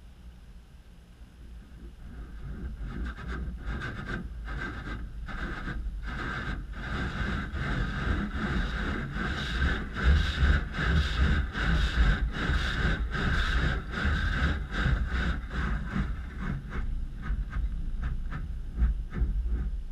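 Automatic car wash: a spinning cloth brush slapping and scrubbing across the car amid spraying water and running wash machinery. It builds up a couple of seconds in and is loudest while the brush passes over, as rapid flapping slaps over a heavy rumble.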